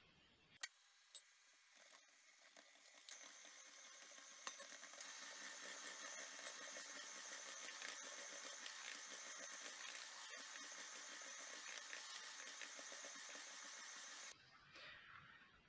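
Electric hand mixer with dough hooks running steadily as it works flour into a soft, sticky dough. Faint, with a thin steady whine; it comes in about three seconds in and cuts off suddenly near the end.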